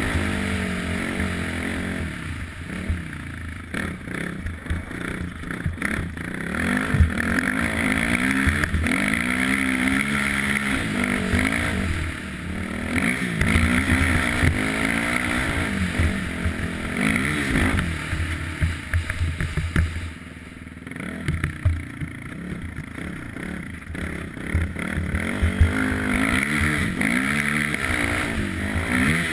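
ATV (quad bike) engine running under way, its pitch rising and falling again and again as the throttle is opened and eased, with a brief let-off about two-thirds of the way through.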